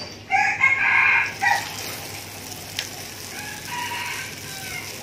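A rooster crowing: one loud, long crow just after the start and a fainter call about three and a half seconds in. Under it, battered sweet potato sizzles in a pan of hot oil from about a second in.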